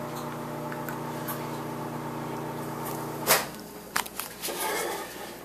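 A steady low electrical hum, which stops about three seconds in. It gives way to a couple of sharp knocks and rustling from the handheld camera being moved about.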